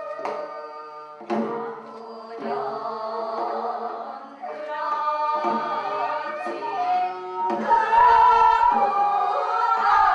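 Korean traditional-style singing by several voices with instrumental accompaniment, with sharp struck accents about a second and a half and two and a half seconds in; the singing grows louder in the last few seconds.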